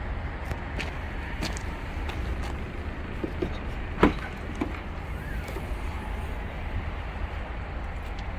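A Kia Sorento's tailgate latch releasing with one sharp click about four seconds in, with a few smaller handling clicks around it, over a low steady rumble.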